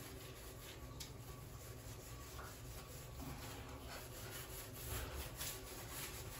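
Faint scratchy rubbing of a Bombril steel wool pad scrubbing ceramic wall tiles and their grout.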